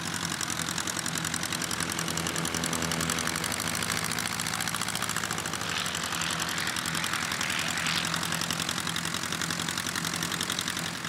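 Light single-engine propeller plane's piston engine idling with a steady, even beat as the plane taxis slowly on grass.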